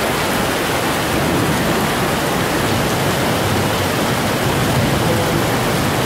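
Heavy downpour: a loud, steady hiss of rain pouring onto paving stones and a waterlogged road.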